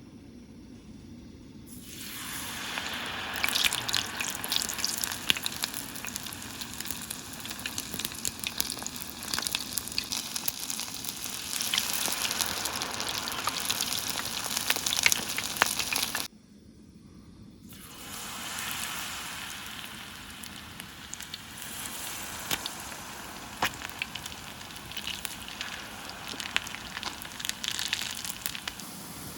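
Hot oil sizzling with many small pops as tempura deep-fries. The sizzle drops out briefly about halfway, then comes back.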